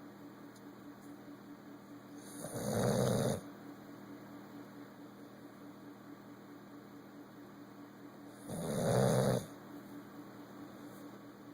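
Bully-breed dog snoring in its sleep: two loud snores about a second long each, the first a couple of seconds in and the second about six seconds later, with quiet breathing between.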